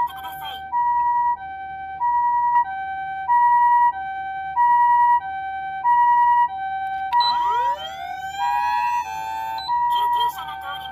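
Osaka Siren MK-D1 siren amplifier sounding the Japanese ambulance two-tone siren, a high tone and a lower tone alternating about every two-thirds of a second. About seven seconds in, a rising wail sweep cuts in for a couple of seconds, then the two-tone pattern resumes.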